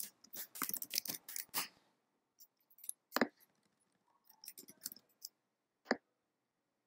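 Scattered sharp clicks of a computer mouse and keyboard while text is selected, copied and pasted: a quick cluster at the start, then single clicks and a small group further on.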